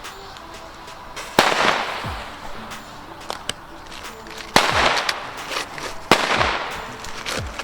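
Firecrackers from a cheap New Year's cracker assortment going off: three loud bangs, the second about three seconds after the first and the third a second and a half later, with a few small cracks in between.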